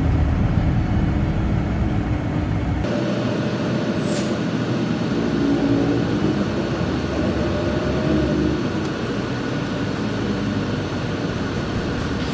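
Steady engine and road noise inside an express bus, with a low droning hum. About three seconds in the sound changes abruptly: the deep rumble drops away and a high hiss comes in, and a brief high whistle follows a second later.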